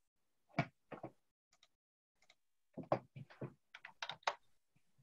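A few faint, short knocks and clicks scattered through silence, one or two about half a second to a second in and a quick cluster of several around three to four seconds in.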